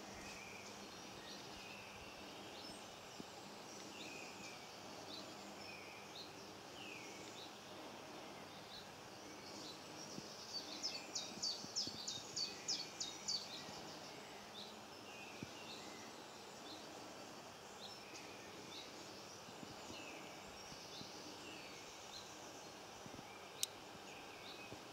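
Wild songbirds calling in woodland: scattered short high chirps throughout, with a louder rapid run of about ten sharp notes about halfway through. A single sharp click near the end.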